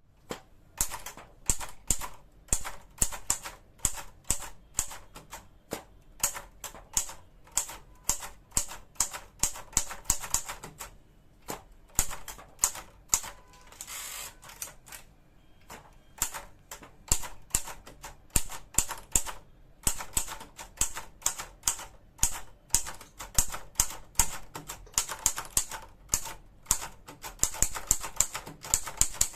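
Hermes Baby portable manual typewriter being typed on: quick runs of sharp key strikes with a few short pauses.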